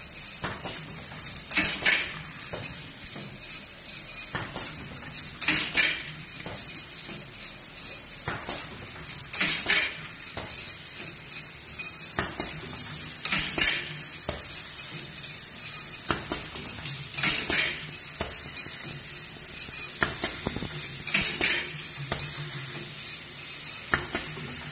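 Automatic glass pipette-forming machine running: glass tubes clink and rattle against the metal rack, with a louder clattering burst about every four seconds as the machine cycles. Underneath, a steady high hiss from the gas burners and a low machine hum.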